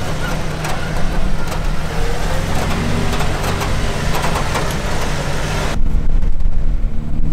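Jeep engine running at crawling speed over slickrock, heard close from the vehicle with frequent clicks and knocks from the body and tyres on rock. About six seconds in it cuts abruptly to a duller, steady low rumble.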